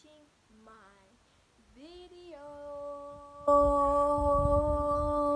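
A girl's voice: a few short sung or hummed sounds, then from about two seconds in one long held sung note that jumps louder about a second later, with a low rumble underneath.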